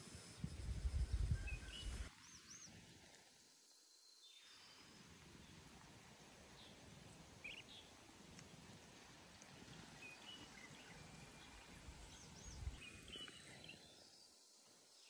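Quiet outdoor ambience. A brief low rumble fills the first two seconds, and short high chirps come and go throughout.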